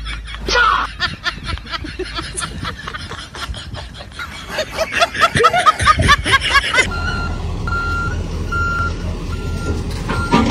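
A fast run of clicks mixed with short, pitched, voice-like sounds for the first seven seconds. Then a heavy vehicle's engine runs with a backup alarm beeping steadily, about twice a second.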